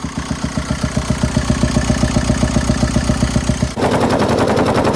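VW Golf Mk2's TDI diesel engine idling with a rapid, even ticking clatter. The mechanic has confirmed this as a failed, punctured hydraulic lifter. About four seconds in, the sound cuts to a louder, closer clatter.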